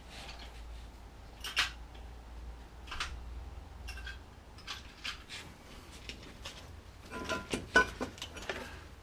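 Scattered light metallic clicks and clinks as a new brake disc's retaining screws are handled and started by hand, with a quick run of clinks near the end.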